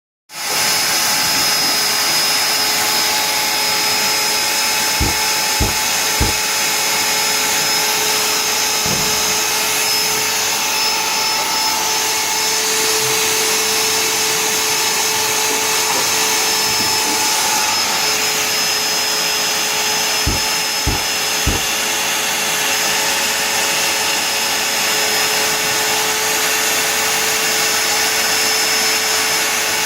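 CNC wood router's spindle running steadily as it mills wood: a constant high whine over a steady noise. Three short dull knocks come about five seconds in and three more about twenty seconds in.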